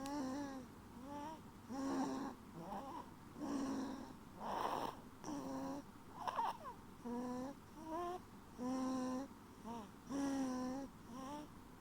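A sleeping baby snoring: short pitched breath sounds repeat about every three quarters of a second, with a louder, harsher breath near the middle.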